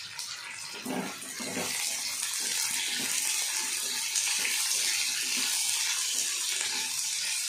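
Sliced onions sizzling in hot oil in a kadai, the hiss growing louder from about a second in as a wooden spatula stirs them, with a few soft knocks of the spatula against the pan early on.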